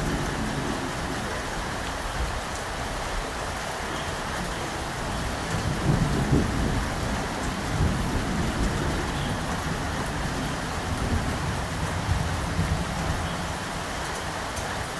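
Steady rain falling, with low rolling thunder rumbling underneath. The thunder swells loudest about six seconds in and rumbles on through the middle of the stretch.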